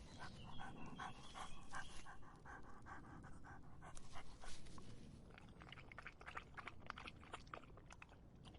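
A dog lapping water with quick, even laps, about five a second, easing briefly about halfway through before picking up again.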